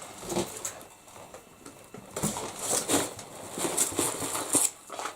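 Small craft-supply items and their plastic packaging being handled and set down on a table: irregular clicks, taps and rustles.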